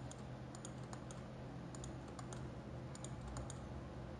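Faint, irregular clicks from computer use, a few every second in small clusters, over a steady low hum.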